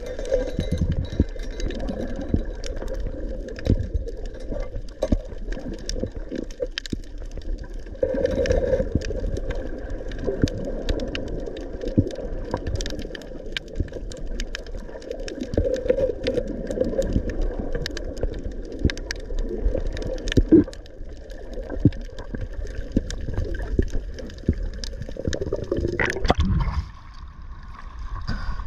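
Underwater camera audio while free-diving: a muffled water rumble with scattered sharp clicks and crackles throughout. About 26 seconds in, the sound changes abruptly as the camera breaks the sea surface.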